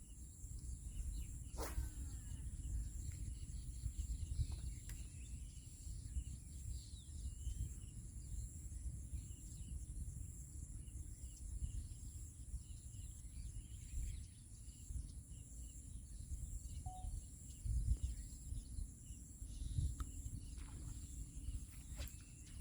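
Outdoor rural ambience: a constant low rumbling noise, a steady high-pitched drone and a few faint bird chirps, with occasional small clicks.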